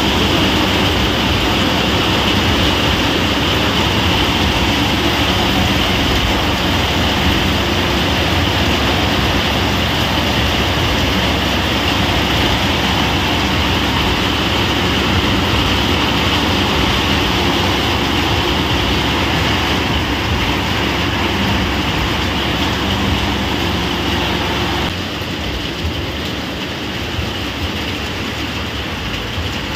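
Heavy rain mixed with hailstones pelting a paved courtyard: a loud, steady downpour that drops slightly in level near the end.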